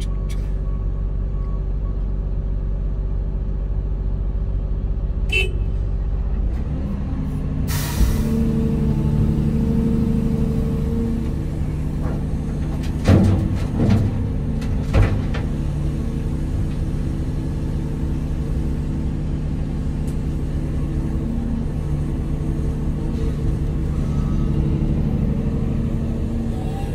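Excavator diesel engine and hydraulics working under load, heard from inside the cab, the engine note rising about a quarter of the way in. About halfway through come three sharp knocks as a bucketload of dirt is dumped into a steel dump-truck bed.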